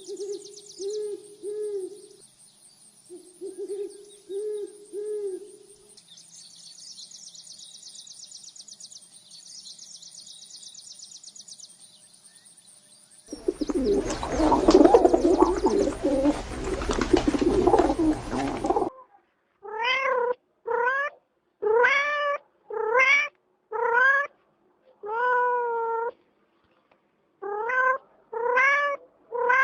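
A run of animal sounds: short repeated calls at first, then a loud noisy passage of several seconds. That cuts off and a domestic cat meows about ten times, roughly once a second.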